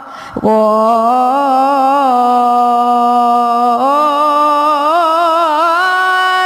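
A child singing an Islamic nasheed unaccompanied: after a quick breath, one long held note with a slight waver, stepping up to a higher held note partway through.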